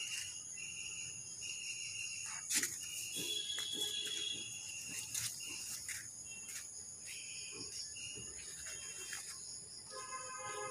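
Evening insect chorus: crickets and other insects chirring steadily at a high pitch, with shorter broken calls coming and going over it. A few sharp clicks, and near the end a brief pitched tone with several overtones.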